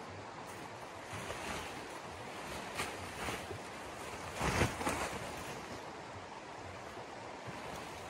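A large heavy fabric tarp being lifted, swung and shaken open, giving a few whooshing swishes, the loudest about four and a half seconds in, over a steady background hiss.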